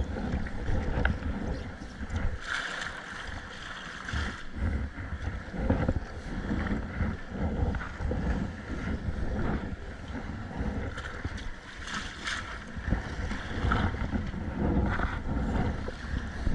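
Wind buffeting the microphone on a kayak at sea, with water sloshing and splashing against the boat in brief surges every few seconds.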